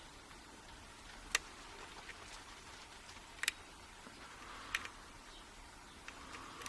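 Lock pick working the pins of a pin-tumbler euro cylinder under tension: faint scratchy ticks of the pick against the pins, with three sharp metallic clicks about a second and a half in, three and a half seconds in and near five seconds in, the clicks of pins moving and the core shifting in a false set.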